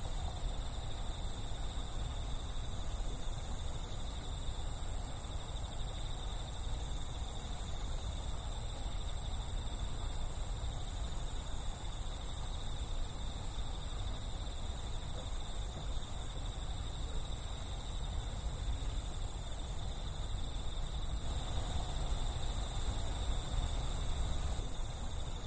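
Crickets chirping steadily with an unbroken high-pitched trill, over a steady low rumble.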